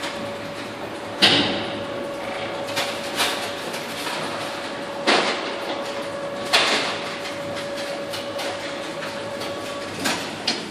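Kardex Industriever Sys 501 paternoster rotary shelving unit running, its drive giving a steady hum as the shelf carriers circulate. Sudden clunks come every few seconds, the loudest about a second in. The hum stops shortly before the end, followed by two more clunks.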